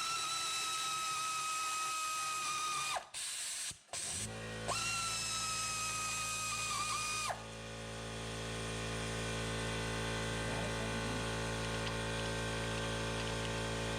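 Pneumatic air ratchet running in two spells of about three seconds each, a steady high whine with a short break between. From about four seconds in, a steady low hum with several tones sets in and carries on after the whine stops.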